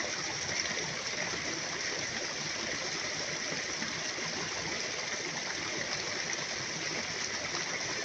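Steady rushing of running water, even throughout.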